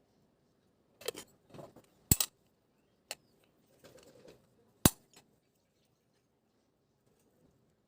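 Aluminium parts of a Bialetti Brikka moka pot clinking and knocking as it is taken apart: a few sharp metal clinks, two loudest about two and five seconds in, with softer handling and scraping between.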